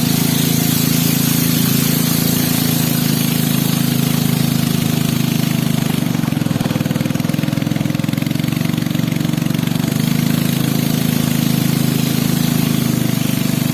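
A small engine running steadily at a constant speed, with a fast, even chug.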